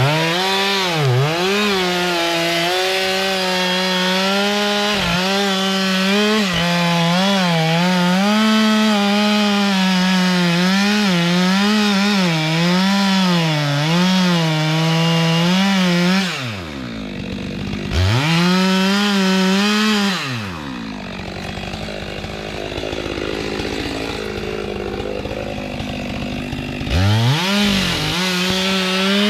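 Two-stroke Stihl chainsaw at full throttle cutting into kapok wood, its pitch wavering as the chain loads up in the cut. About halfway through it drops off, revs up once briefly, falls to a quieter low running, then revs up again near the end.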